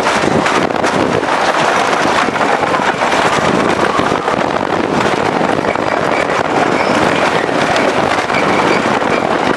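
Custom Coasters International wooden roller coaster train running at speed over its wooden track: a steady loud rattle and rumble, with wind rushing over the microphone.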